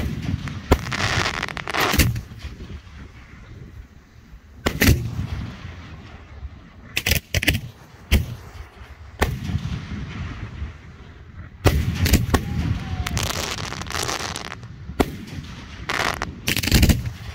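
Aerial fireworks going off: an irregular series of sharp bangs from shells bursting overhead, about a dozen in all, some followed by a second or more of hissing crackle.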